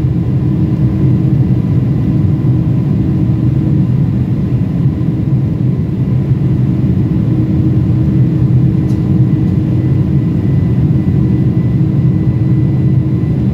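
Boeing 747-400's General Electric CF6-80C2 turbofan engines heard from inside the cabin during the climb after takeoff: a steady deep rumble with a faint, even high whine.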